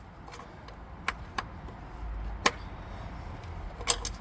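Several sharp clicks and taps of hand tools against metal car fittings, the loudest about two and a half seconds in, over a faint low rumble.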